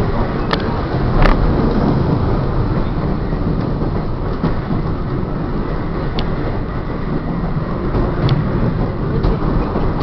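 Trolley car running along the rails, heard from inside: a steady rumble of wheels on track, with a few sharp clicks, two of them near the start.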